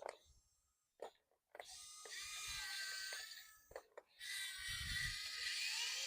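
Small electric motors of a radio-controlled toy truck whining in two stretches, the first starting about one and a half seconds in and the second about four seconds in, with the pitch gliding up and down. A low rumble runs under part of the second stretch.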